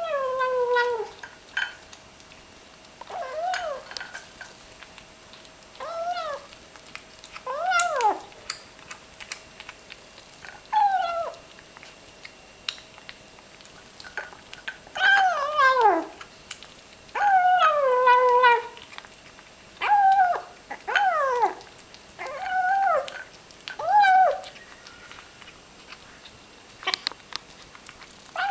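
Small ginger kitten making short mewing growls as it eats, about a dozen calls with a second or several between them, each sliding down in pitch: the 'yum yum' noises of a kitten enjoying its food.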